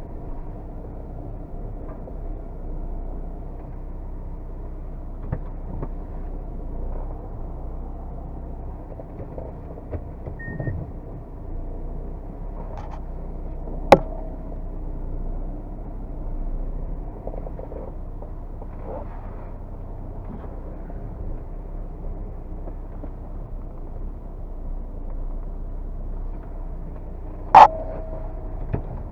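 Diesel car engine running steadily. Two sharp metallic knocks ring out, one about halfway through and one near the end.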